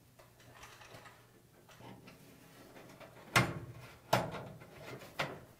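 Quiet handling of wires and push-on terminals on a dryer heater. Just past halfway comes a sharp clack, then two more a second or so apart near the end, as the wires and the hand knock against the dryer's sheet-metal heater housing.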